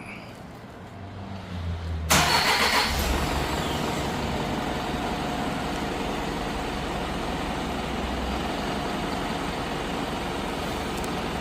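Hyundai Mighty truck's turbo-diesel engine remote-started after its glow preheat: the starter cranks briefly, the engine catches about two seconds in with a loud burst that settles within about a second, then idles steadily.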